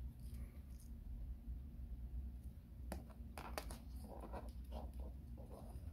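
Faint handling of small computer parts: a few light clicks about three seconds in, then soft rustling and scraping, over a low steady hum.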